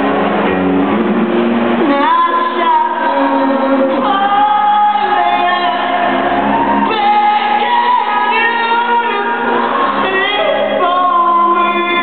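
Live rock band playing with a voice singing over sustained guitar and bass, heard from far back in a large hall, so it sounds distant and echoing. The singing comes in long held phrases that rise and fall.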